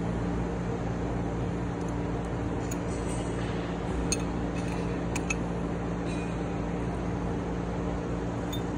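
Steady machinery hum in a workshop, with a few light metallic clinks of hand tools against the rocker arms as a valve lash adjusting screw is turned and its jam nut held with a wrench.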